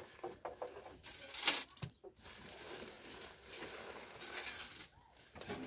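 Dry grain rustling and pattering as hands spread it in a shallow trough, with a sack being handled; the loudest rustle comes about one and a half seconds in.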